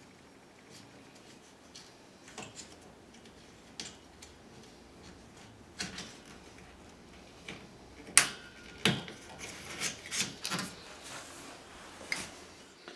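Light clicks and knocks of hands working on a chrome towel radiator's fittings at the wall, scattered at first, then a busier run of sharper knocks about eight to eleven seconds in.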